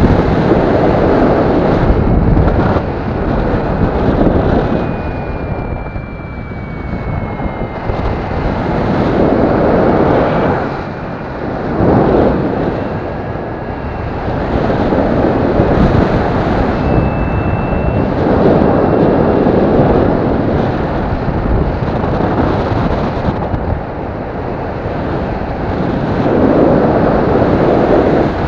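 Airflow buffeting the microphone of a harness-mounted camera on a paraglider in flight, a rushing noise that swells and eases every few seconds.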